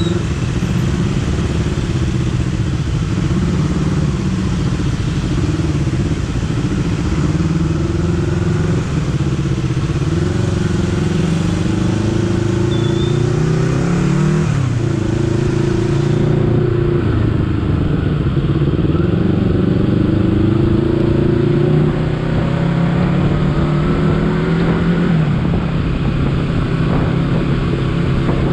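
Honda CBR250RR parallel-twin engine under way, its revs climbing steadily and dropping sharply at the gear changes, most clearly about halfway through and again near the end.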